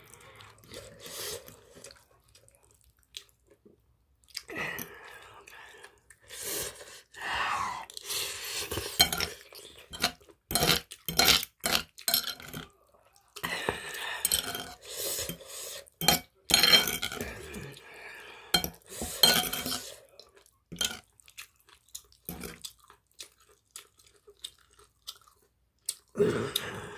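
A metal utensil scraping and clinking against a plate while mixing and scooping wet, sauced rice, in irregular bursts with a quick run of sharp clicks midway, along with chewing.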